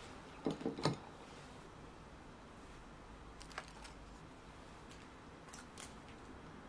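A slice of crisp toast set down on a ceramic plate: three or four quick soft knocks just under a second in, followed later by a couple of faint light clicks.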